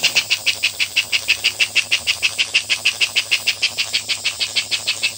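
Smoke-unit chuffer in an American Flyer HO smoking tender, driven by a homemade copper piston in place of the rubber bellows, puffing air in an even run of about seven chuffs a second. A faint low hum lies underneath.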